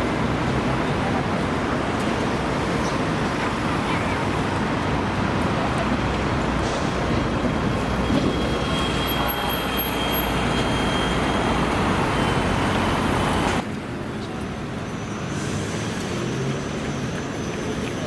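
Hybrid city bus driving past amid steady street traffic noise, its engine and tyres rumbling on the road. About thirteen seconds in, the sound cuts abruptly to a quieter, thinner outdoor background.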